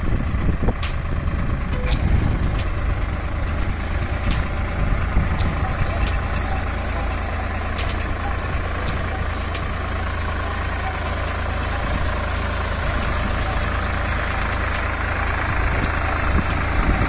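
Four-wheel-drive farm tractor's diesel engine running steadily under load as it pulls a disc plough through hard black soil, with a few faint clicks.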